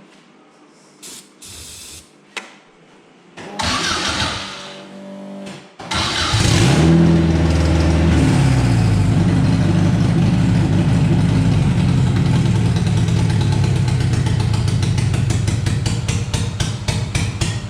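Honda K20 four-cylinder engine turning over and catching about six seconds in, briefly revving, then running on with a choppy, uneven beat near the end: it is not firing on all cylinders, which the crew puts down to old, bad fuel.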